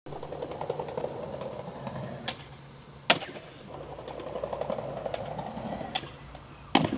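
Skateboard wheels rolling on rough concrete, broken by a sharp, loud clack of the board about three seconds in and two more clacks close together near the end.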